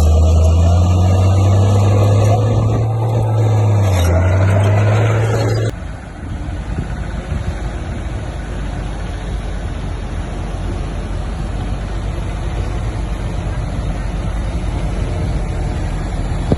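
Diesel engine of heavy earthmoving equipment working hard, its low drone shifting in pitch. About six seconds in it cuts off abruptly to a quieter, steadier engine rumble.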